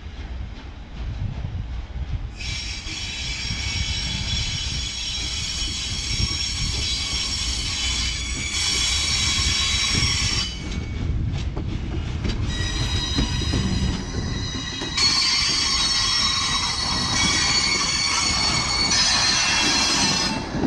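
Norfolk & Western 611, a J-class 4-8-4 steam locomotive, rolling around a curve toward and past the listener. A high squeal of wheel flanges on the curving rail starts about two seconds in, breaks off briefly about halfway, and returns over a low rumble that grows louder as the engine draws close.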